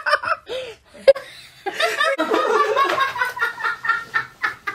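Young girls laughing: a few short bursts, then a longer run of rapid, pulsing laughter from about two seconds in.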